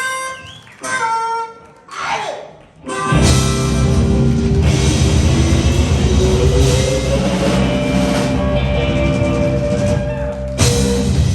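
Live blues band ending a song. A few short lead phrases come first. About three seconds in, the whole band crashes in on a long held closing chord over rolling drums and cymbals, and it ends on a final hit near the end.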